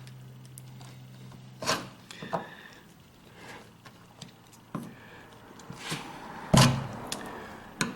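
Scattered clicks and knocks of hand work on a Holden HQ driver's door, prying and pulling its plastic press-in trim clips, with one louder thump about six and a half seconds in. A low hum stops a little under two seconds in.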